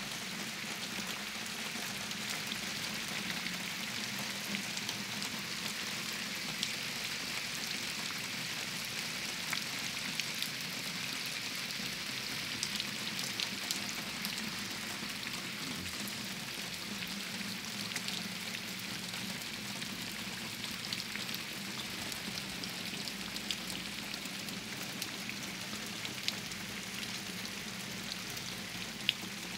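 Steady rain falling on foliage, including the broad leaves of a loquat tree: an even hiss with scattered sharper drop hits throughout.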